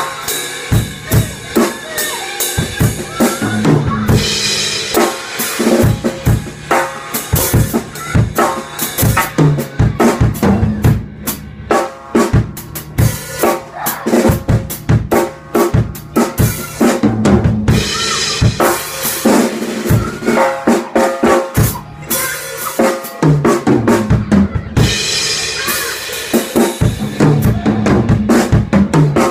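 Drum kit played in a continuous groove: bass drum and snare strokes throughout, with cymbal crashes ringing out at several points.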